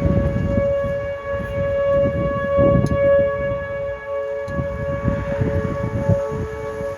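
Whelen Vortex and Whelen 4004 outdoor warning sirens sounding a steady alert tone, holding pitch. It is sounding off the scheduled test day, which the recordist takes for an actual warning. Strong wind buffets the microphone underneath.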